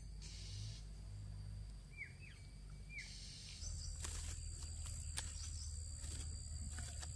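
Rural outdoor ambience: a small bird gives several short, falling chirps in the first few seconds over a steady high insect drone and a low rumble, with a few sharp clicks later on.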